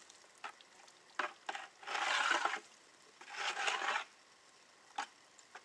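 Mortar being scraped and stirred in a pail: two long, gritty scraping strokes about two and three and a half seconds in, with a few small clicks and knocks around them.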